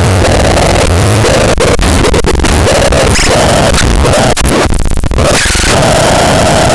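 Loud, harsh distorted noise with a droning band in the mid-range. About two-thirds of the way in it breaks into a rapid stuttering chop, then returns to the steady wash.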